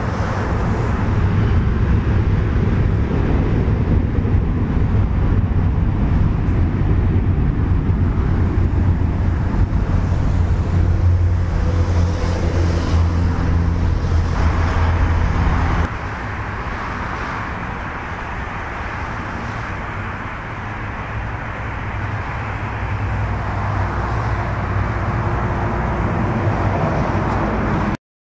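Jet engines of a Boeing 737-800 running as the airliner moves along the runway, a steady heavy low rumble. The level drops suddenly about halfway through, and the sound cuts off just before the end.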